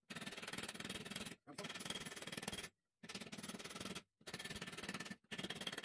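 Ball-peen hammer striking the cut-off end of a screw on a steel rail anvil, rounding it over like a rivet to lock the wooden handle to the saw-blade steel. It comes as faint runs of quick light strikes, each about a second long, broken by short pauses.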